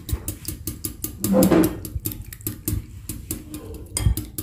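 Wire balloon whisk beating raw eggs in a glass bowl, its metal wires clicking against the glass in a rapid, even rhythm of about six strokes a second. The eggs are being beaten until the yolks blend smoothly into the whites.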